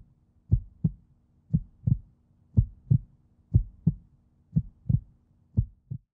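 Heartbeat sound effect: six slow lub-dub double thumps, low and muffled, about one beat a second, over a faint steady hum.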